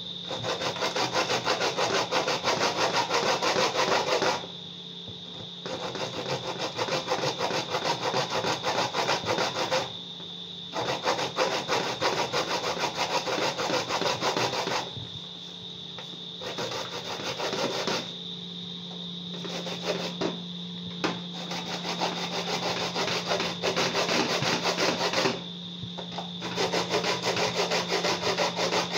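An ear of corn being grated on a metal grater: a fast scraping rasp in long runs, broken by short pauses as the cob is repositioned.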